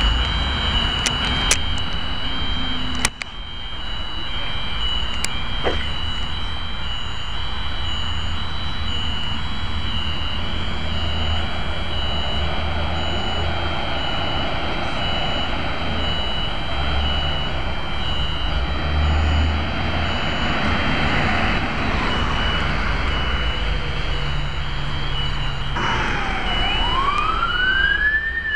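Approaching fire truck: a low engine rumble with road noise, and a high pulsing beep underneath. A few sharp clicks come in the first three seconds. Near the end the truck's siren starts, its wail rising and then beginning to fall.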